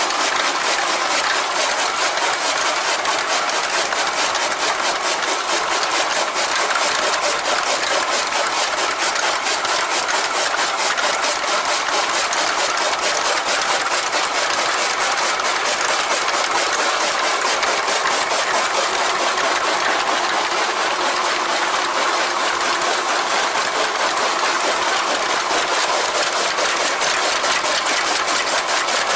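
Chaff cutter (toka machine) running steadily, its flywheel-mounted blades chopping green fodder stalks as they are fed in, in a fast, even chopping rhythm.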